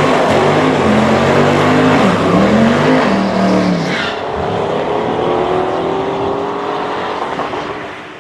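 V8 muscle car engines revving hard through burnouts, the rear tyres spinning and squealing. The engine pitch rises and falls sharply for the first few seconds, then settles into one steadily rising note that fades near the end.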